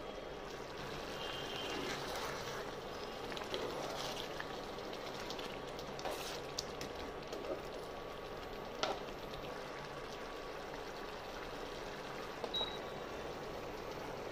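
Thick potato curry simmering in an open pot: a steady bubbling hiss with occasional soft pops.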